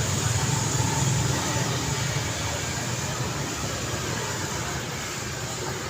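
Street traffic noise with a steady wash of road sound and a low engine hum. The engine hum is strongest at the start and fades gradually as the vehicle draws away.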